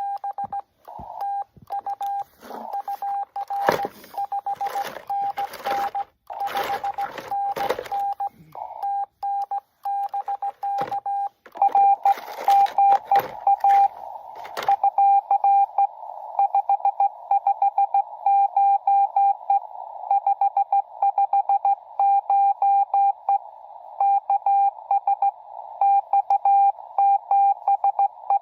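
Morse code (CW) from an amateur radio transceiver: one steady mid-pitched tone keyed on and off in dots and dashes. Over the first half loud rustling and knocking handling noises come and go; from about halfway the tone sits in a band of hiss, a signal heard through the radio's narrow CW filter.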